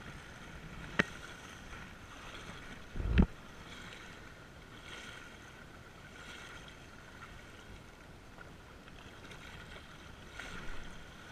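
Steady wind on the microphone with small lake waves lapping against a rocky shore. A sharp click comes about a second in and a brief low thump around three seconds, the loudest moment.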